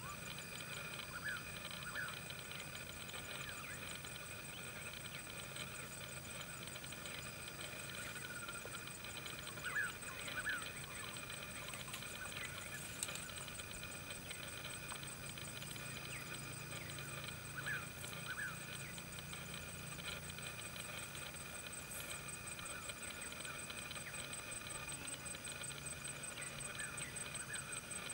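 Steady insect chorus, several high trilling tones holding on without a break. Short rising chirps in pairs sound now and then, about four times.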